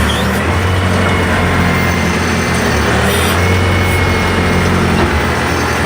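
Backhoe's diesel engine running steadily under load while the hoe works, a constant low engine drone.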